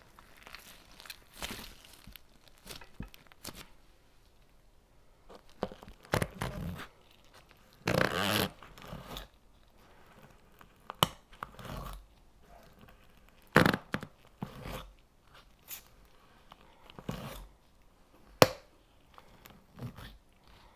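Close-up crunching, tearing and crackling from hands squeezing and pulling a soft play material such as slime or kinetic sand, in irregular short bursts with sharp clicks between pauses. The loudest is a longer crunchy burst about eight seconds in.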